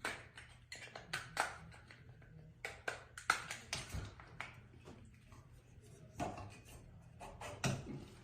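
Scattered light clicks and taps at irregular intervals as a plastic piece is fitted onto a metal cabinet drawer rail.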